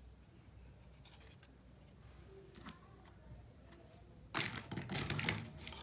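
A few faint light taps and clicks of small plastic pieces being handled, then about four seconds in a loud crinkling and rustling, like packaging being crumpled or torn open.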